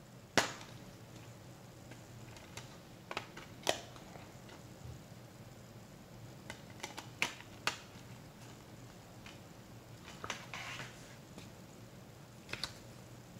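A clear plastic Blu-ray case being handled: a sharp plastic click about half a second in as the case opens, then scattered lighter clicks and taps of fingers on the case and the disc hub, with a short scrape near the ten-second mark.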